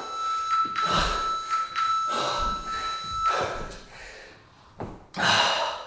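A man breathing hard and fast in heavy, hissy gasps, out of breath just after an all-out interval; the loudest breath comes about five seconds in. A steady high tone sounds for the first three seconds or so.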